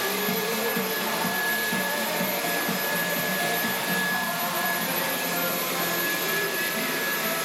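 A Dyson cordless stick vacuum cleaner running steadily, its motor giving a constant high whine over the rush of air.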